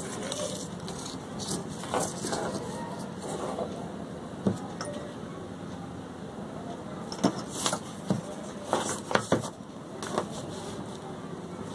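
Handling sounds while drafting a paper pattern: paper rustling and a tape measure and steel ruler being laid and shifted on the sheet, with a pen marking. Several sharp taps and clicks come in a cluster about 7 to 9 seconds in, over a steady background rumble.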